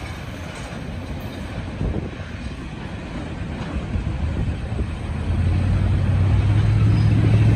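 Low rumble of a departing doublestack intermodal train's cars on the rails, fading into the distance. From about five seconds in, a steady low hum grows louder to the end.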